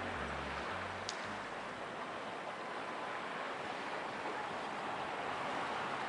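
Steady rush of sea surf and wind at the shore. Low background music notes fade out about a second in.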